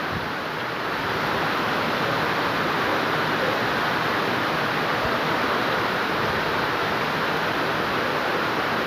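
Steady rushing noise of fast-flowing floodwater, even and unbroken throughout.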